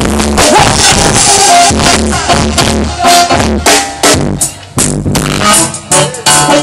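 Live reggae band playing loudly: electric guitar, bass and drum kit. About four seconds in the band drops back, then comes in again with short punchy hits.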